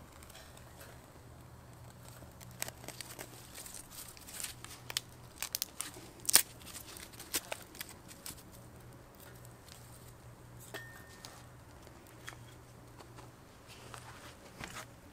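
Small wood fire of thin kindling crackling and snapping in a folding steel camp stove as it catches. A quick run of sharp snaps and crackles comes in the first half, the loudest about six seconds in, then only occasional pops.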